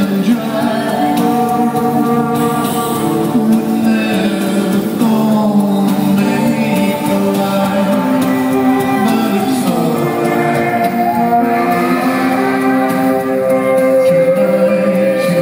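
Live band performance with a male and a female vocalist singing together over the band, recorded from the audience.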